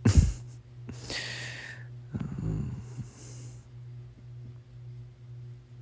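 A man yawning close to the microphone: a low puff of breath, a long airy inhale, a low voiced groan about two seconds in, then a breathy exhale. A steady low electrical hum runs underneath.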